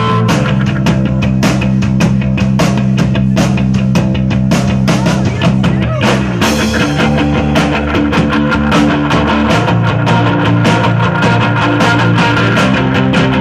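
Live rock band playing: electric guitar and bass guitar holding low chords over a drum kit keeping a steady beat. About six seconds in the chord changes with a loud hit.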